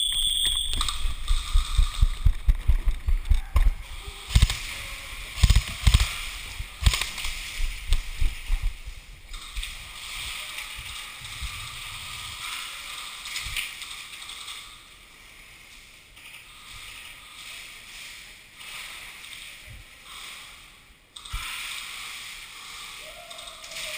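Footsteps of a player on the move, with his clothing and gear rustling against the microphone: a quick run of low thumps for the first few seconds, then slower, irregular steps and softer brushing noise.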